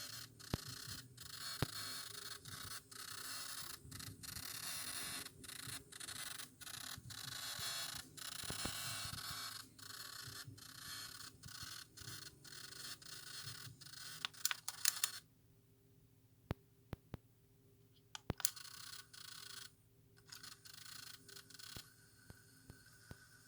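Philips DCC134 portable Digital Compact Cassette player making a weird scratchy, hissing noise broken by short gaps about once or twice a second, with sharp clicks. About two-thirds through, the hiss stops for a few seconds, leaving only clicks, then comes back more faintly. This is an unexplained fault in a unit that has had its tape path cleaned and its worn belt replaced.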